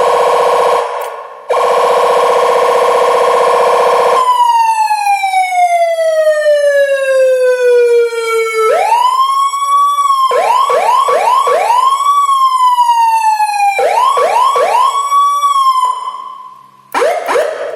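Electronic 12-tone siren module switching through its tones. A harsh, steady buzzing tone breaks off briefly about a second in and resumes; it then gives way to a slow falling wail, followed by groups of quick rising yelps that alternate with slower falling sweeps.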